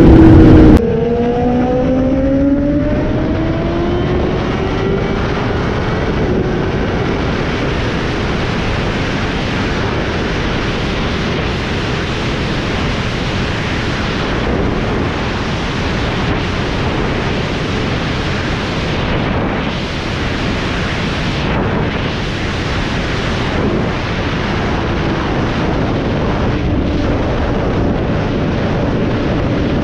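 A 2018 Honda CBR1000RR's inline-four engine drops off about a second in, at a gear change, then climbs steadily in pitch as it pulls up through the revs. After that, steady wind rush at highway speed covers most of it, with the engine running underneath.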